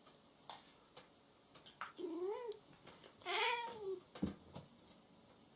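A house cat giving two drawn-out meows about a second apart, each rising and then falling in pitch, the second louder; a brief low knock follows just after.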